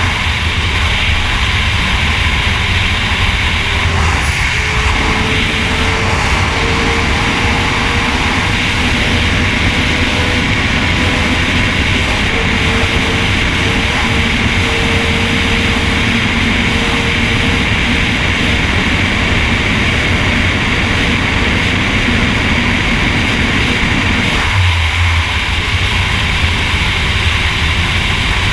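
Sport motorcycle running steadily at highway speed: a constant engine drone under heavy wind rush on the microphone.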